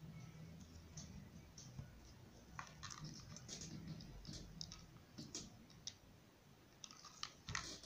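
Faint scattered clicks and rustles from a hot glue gun being worked against a satin ribbon bow, with the clicks bunching together near the end.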